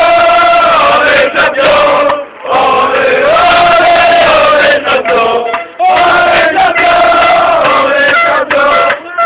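A crowd singing a chant together, loudly, in long held phrases broken by short pauses about two and six seconds in.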